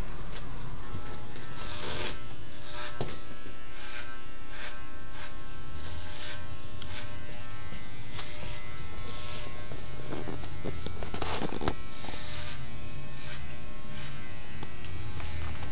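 Electric hair clippers running with a steady buzz, broken by repeated rasping strokes as the blades cut through short hair.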